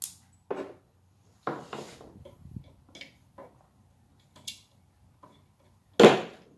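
Scattered metal clinks and knocks of a wrench and bolts being worked on a water pump's metal pump housing, with a loud clunk about six seconds in as the housing is taken hold of and shifted.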